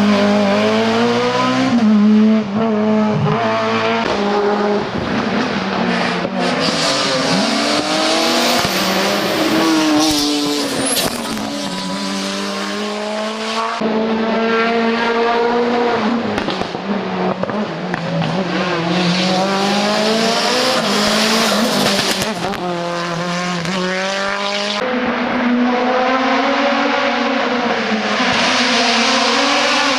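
Hill-climb race cars accelerating hard up a mountain course, engine notes climbing through the revs and dropping back with each gear change, one car after another with abrupt changes between them.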